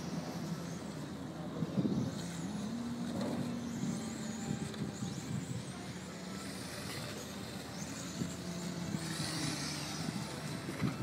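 1/10-scale electric touring cars with 10.5-turn brushless motors lapping an asphalt track: the high whine of motors and gears swells and fades several times as cars pass, over a steady low background drone.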